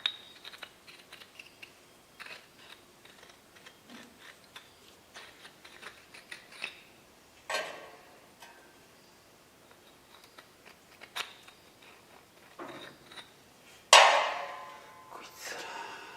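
Metal parts and tools being handled: scattered light clicks and clinks, a sharper knock about seven seconds in, and a loud metallic clank near the end that rings briefly.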